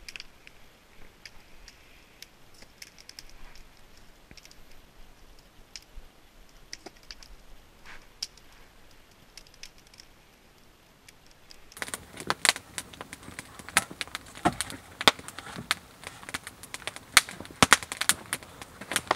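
Wood fire crackling faintly, with scattered sharp pops. About twelve seconds in, much louder and denser sharp snaps and clicks take over.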